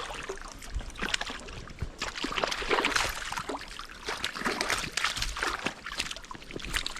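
Irregular splashing and sloshing of water: a hooked fish thrashing at the surface while it is played in.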